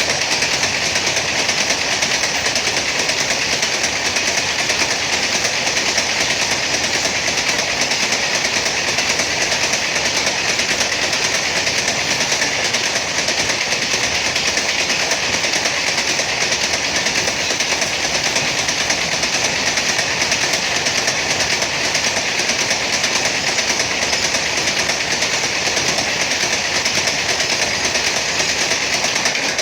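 Freight train running past at full speed: a steady, loud rush of wheel-on-rail noise from the rolling wagons, with no horn.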